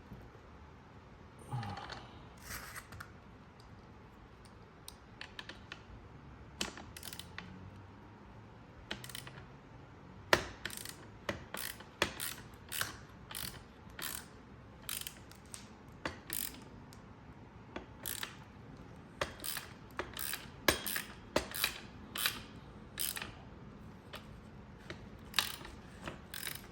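Hand ratchet wrench clicking in short, irregular runs of single clicks as fasteners are worked, sparse at first and more frequent from about ten seconds in.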